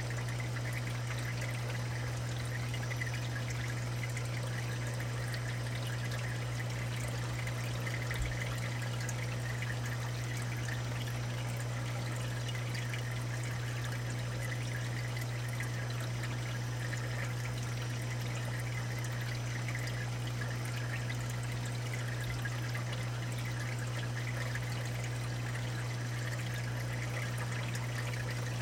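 Water trickling and pouring steadily in a saltwater aquarium sump, over a steady low hum.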